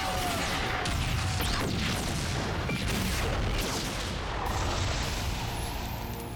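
A large explosion: a deep blast that carries on for several seconds and eases off near the end.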